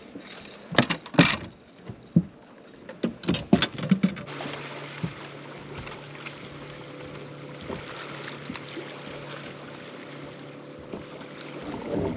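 A series of sharp knocks and thumps for the first four seconds, then a bow-mounted electric trolling motor's steady hum, which steps up in pitch near the end as its speed is raised.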